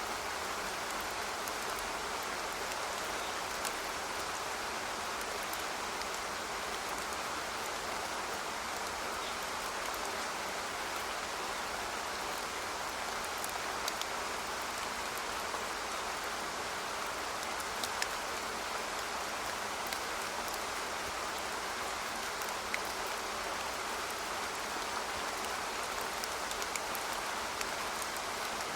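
Steady rain falling, with scattered individual drops ticking sharply over the even hiss.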